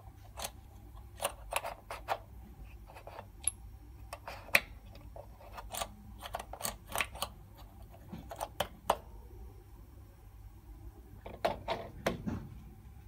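Irregular sharp clicks and clacks from handling a small brass safety relief valve, its orange test cap being twisted by hand. Near the end a quick cluster of metallic clanks and a heavier knock as a wrench is fitted onto the valve.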